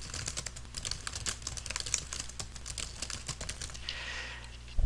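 Rapid, irregular keystrokes on a computer keyboard as text is typed in quickly, thinning out after about four seconds, with a single thump near the end.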